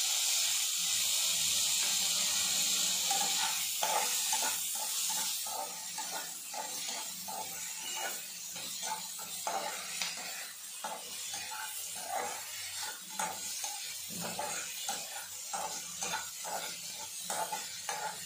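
Tamarind water sizzling loudly as it hits the hot pan of frying onion, tomato and dried red chillies, the hiss easing after a few seconds. From about three seconds in, a steel spatula stirs and scrapes the pan in quick, irregular strokes.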